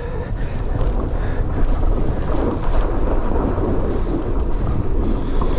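Wind buffeting the microphone of a moving electric fat bike, with its fat tyres rolling through soft fresh snow: a steady low rumble.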